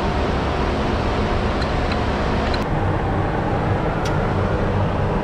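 Steady, loud mechanical drone and rush of air with a low hum, with a couple of faint clicks.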